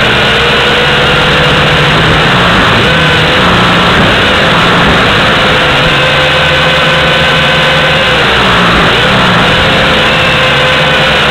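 Small camera drone's electric motors and propellers whirring loudly and close, as heard from the drone itself. The whine shifts in pitch a few times.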